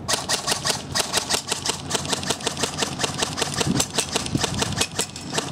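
JG M16A4 airsoft electric rifle firing a rapid string of shots, about six or seven a second, each a sharp clack.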